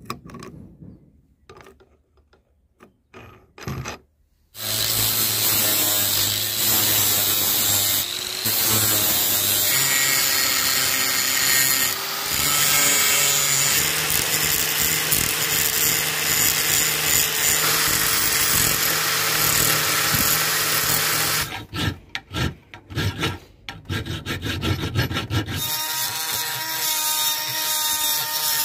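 A few light clicks of handling as a flap disc is fitted to an angle grinder. From about four seconds in, the angle grinder runs steadily while grinding down the welded steel of a pickaxe head. Near twenty-two seconds it cuts in and out in short bursts, and near the end a second, higher-whining tool, a die grinder with a grinding stone, takes over.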